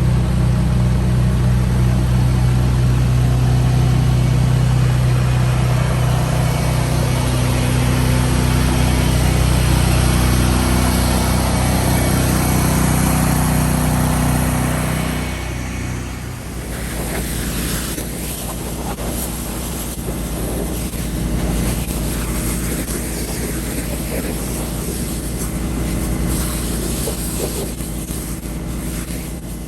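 An engine running steadily with a broad hiss over it. About halfway through, the low engine hum drops away and a quieter steady noise carries on.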